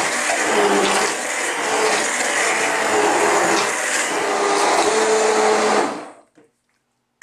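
Handheld immersion blender running in a pot of hot cooked vegetable soup, puréeing the chunks into a smooth liquid. Its motor hum shifts a little in pitch as it works, and it stops suddenly about six seconds in.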